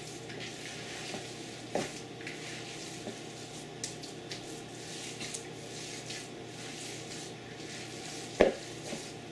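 Hands squishing and kneading a wet fish-and-breadcrumb mixture in a plastic bowl, with a few small knocks and one sharp knock near the end.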